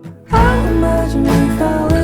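Background music: a song that drops out briefly at the start and comes back in about a third of a second in, with a bass line and a gliding melody.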